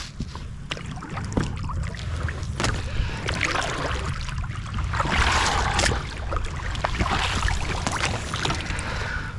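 Water splashing and sloshing around a small inflatable fishing boat, with scattered knocks and clicks and a steady low rumble underneath; the splashing swells twice, about a third of the way in and again near the end.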